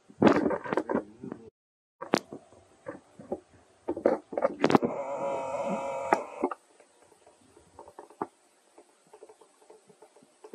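Baby macaque crying out in loud squeals, twice, with knocks and rustles of monkeys moving over dry leaf litter. The sound cuts out completely for a moment about one and a half seconds in.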